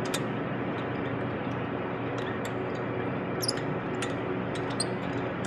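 Scattered light metallic clicks and ticks as a wheel lock key is fitted over a tuner wheel lock and the lock is turned onto the stud by hand, over a steady low background hum.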